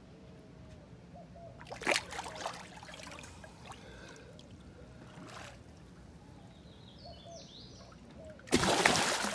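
Tarpon lunging at bait held just above the water and splashing the surface: a sharp splash about two seconds in, a smaller one midway, and a louder, longer splash near the end.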